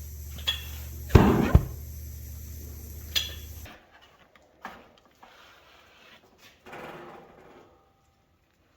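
A steady mechanical hum with a few sharp knocks, the loudest a cluster about a second in; the hum cuts off suddenly a little under four seconds in, leaving faint clicks and shuffling.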